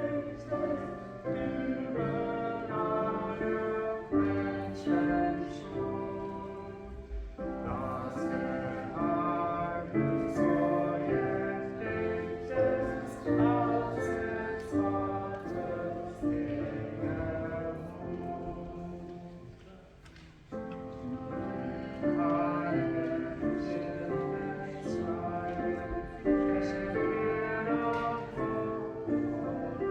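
Church choir singing a slow piece in held chords, with a brief hush about twenty seconds in before the singing picks up again.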